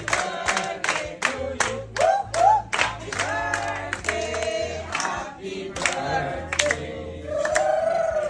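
Music: a song with several voices singing together over a quick, steady beat and a bass line.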